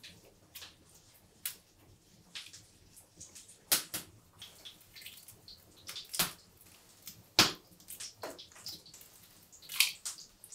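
Hard-boiled eggshells cracked and peeled by hand: irregular small crackles and clicks, with a few louder sharp snaps.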